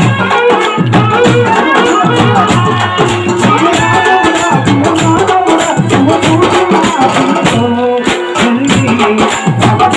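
Live kolatam folk music: frame drums beating a quick, steady rhythm under a melody, with the clack of the dancers' wooden kolatam sticks.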